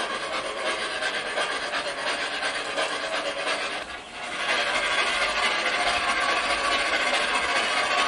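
Gauge 1 model of an LNER P2 steam locomotive running along its track, with a steady rasping noise that is louder from about halfway through.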